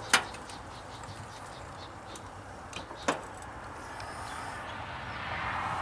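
A jack being pumped to raise a pickup truck's cab: two sharp clicks about three seconds apart, with a few fainter ticks, over a low steady hum.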